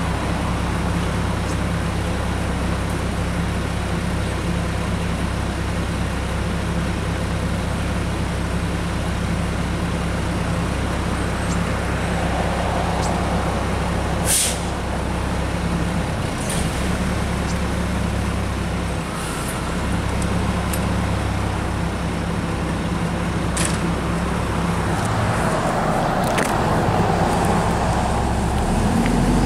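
Mack garbage truck's diesel engine idling steadily at the curb while its McNeilus rear loader is worked, with a few sharp clacks and short air hisses along the way. The engine picks up at the very end.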